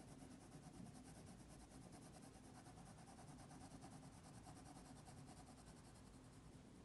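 Faint, steady scratching of a mechanical pencil's soft graphite lead on drawing paper as a dark area is shaded in.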